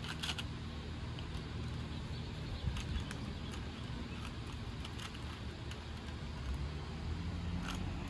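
Plastic Rubik's Cube layers being turned by hand: a few scattered clicks over a steady low outdoor rumble.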